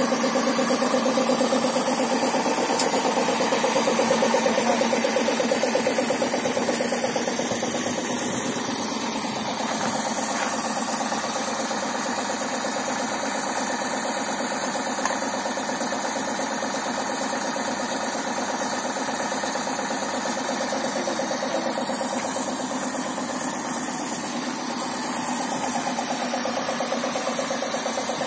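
Stationary engine running steadily on wood gas from a farm-built gasifier, driving a generator.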